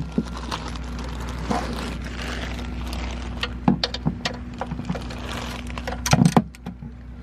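Scattered metallic clicks and clinks of hand tools being handled, with a louder clatter about six seconds in, over a steady low hum.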